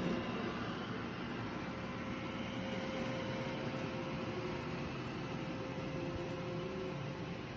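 Robot vacuum running, a steady whir with a faint even hum through it.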